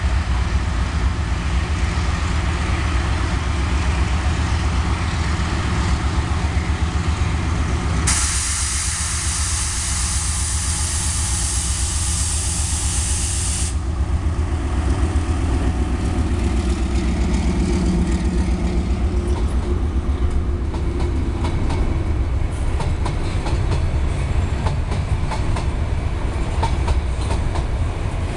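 Diesel freight train passing: the deep rumble of a CRRC Ziyang CDD6A1 diesel-electric locomotive draws near and goes by, then covered freight wagons follow with their wheels clicking over the rail joints. About eight seconds in, a loud hiss starts, and it stops sharply some five seconds later.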